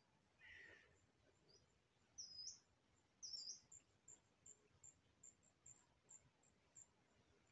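Faint high calls of small wild birds: a short call about half a second in, two quick warbled high notes around two and three seconds in, then a run of thin high chirps, about two a second.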